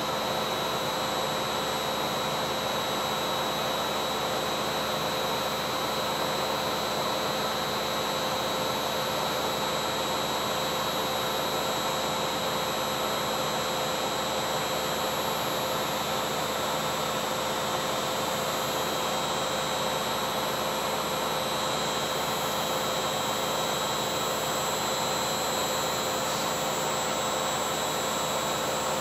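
Beko front-loading washing machine in its spin cycle: a steady whirring rush with a constant whine, unchanging throughout.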